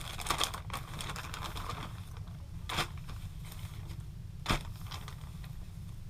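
Rustling of packaging as a jersey is handled and unwrapped, then two short clicks or knocks about a second and a half apart, over a steady low hum.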